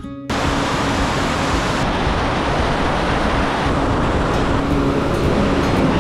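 Water rushing over a concrete dam spillway, heard close up as a loud, steady rush that cuts in suddenly just after the start.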